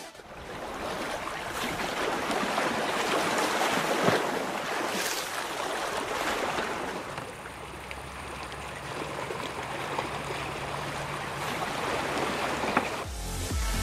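Steady rushing noise like surf or running water, with no beat, and a faint low hum through the middle.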